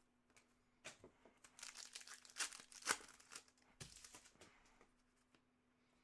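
Faint rustling and crinkling of hockey trading cards being handled, with a few small clicks; the loudest crinkle comes about three seconds in.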